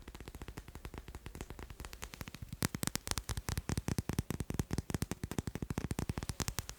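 Fast tapping on macarons: a continuous run of many quick, light taps a second, growing louder about two and a half seconds in.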